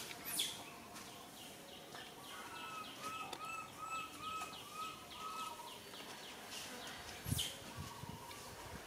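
Outdoor ambience with a bird calling in the background: a run of short, repeated notes, about three a second, in the middle. There are a few sharp clicks, the loudest near the end, followed by some low bumps.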